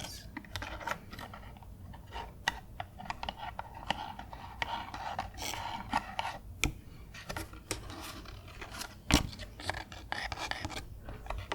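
Close-miked ASMR trigger sounds: an uneven string of small sharp clicks with soft scratchy rubbing between them, the loudest click about nine seconds in.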